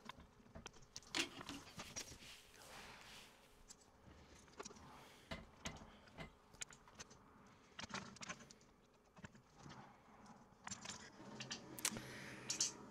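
Faint, irregular clicks and small metallic taps as a loose potentiometer is handled and pushed against the compressor's front panel.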